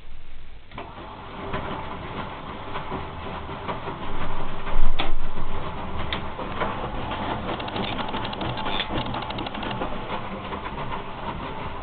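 1968 Miele Automatic 429 washing machine running its last rinse, a continuous mechanical clatter. It swells about four seconds in, with two sharp clicks about five and six seconds in and a fast run of ticks a little later.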